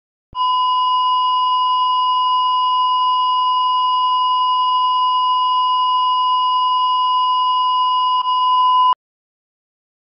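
Steady, loud television test-card tone, one unchanging pure beep. It starts a moment in, dips briefly near the end and then cuts off suddenly.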